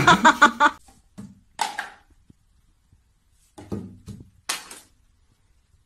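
A kitten meows, loudest at the start and ending within the first second. A few seconds in, a cat knocks plastic toiletry bottles off a bathroom shelf, giving a short run of knocks and clatter.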